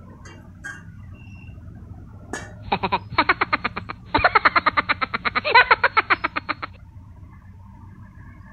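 A dubbed-in 'jeng jeng jeng' reveal sound effect: a fast-pulsing pitched sound lasting about four seconds, with a short break a little past the middle, then stopping abruptly. Before it come a few light clicks as the rice cooker lid is lifted.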